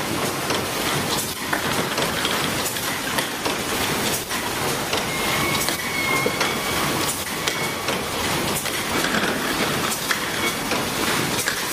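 Fully automatic rotary screen printing machine running: a steady dense clatter of glass jars knocking along the conveyor, with many sharp clicks from the pneumatic cylinder stations cycling.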